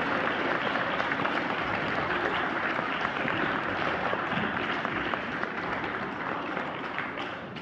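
Audience applauding: a dense, steady patter of many hands clapping that tails off near the end.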